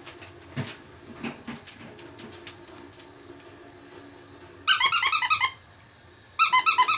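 Squeaky pet toy squeaking in two quick bursts of rapid, high-pitched squeaks, about eight a second, the second burst starting near the end.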